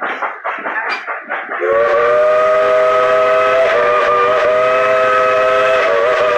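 Steam locomotive whistle blowing a long, loud chord of several tones, starting about a second and a half in and held with slight wavers in pitch. Before it comes a rhythmic pulsing sound.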